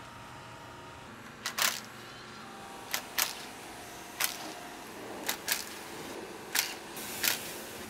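Cordless power tool on a socket extension fired in about nine short, sharp bursts, some in quick pairs, as it loosens the bolts of a stock Allison 10L1000 transmission pan.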